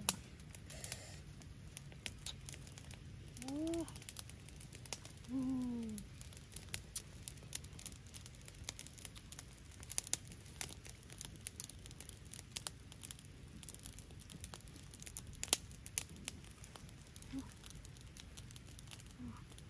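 Small wood campfire crackling, with irregular sharp snaps throughout. Twice, a few seconds in, a short pitched animal call rises and falls.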